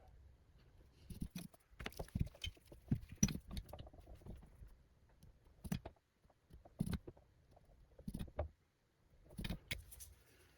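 Small tools and parts handled on a workbench: scattered light clicks and taps in short clusters, with quiet gaps between them.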